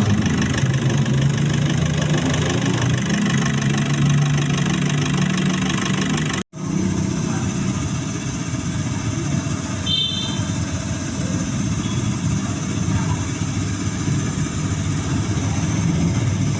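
Car engine idling steadily. The sound cuts out for an instant about a third of the way through and comes back rougher and noisier, with a short high beep-like tone a few seconds later.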